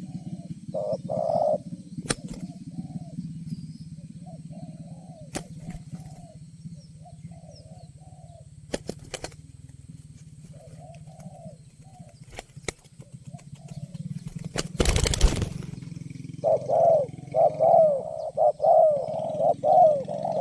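Spotted doves cooing in their repeated 'ter-kuk-kur' phrases. A fainter bird calls through most of the stretch, then about three-quarters of the way in a nearer dove starts a loud, rapid run of coos. A few sharp clicks sound along the way, with a louder knock just before the loud cooing begins.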